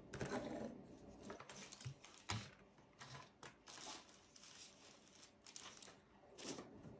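Faint rustling of paper with a few light taps and clicks, the sound of journal pages and small tools being handled on a craft table.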